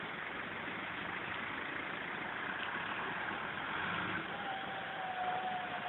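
Car traffic on a rain-soaked street: engines running under an even hiss of rain and wet road noise, with a thin steady tone coming in about four seconds in.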